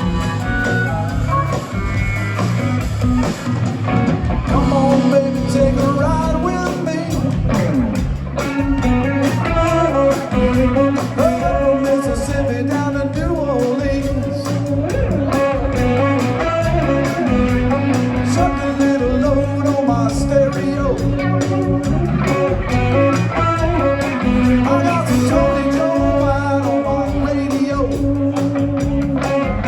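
Blues-rock music with electric guitar and a singing voice, a steady beat throughout.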